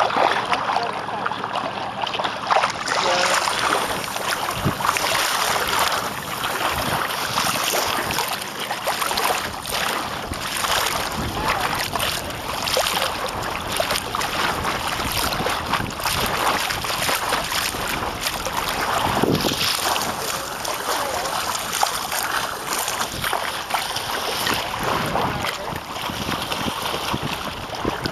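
Wind gusting over the microphone and water splashing and lapping against a small sailing boat's hull as it moves, a continuous rushing noise broken by irregular gusts and splashes.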